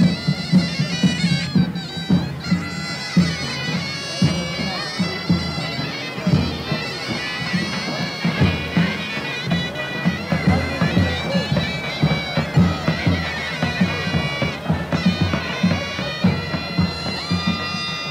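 Folk dance music: a shrill reed wind instrument playing a continuous melody over steady drum beats.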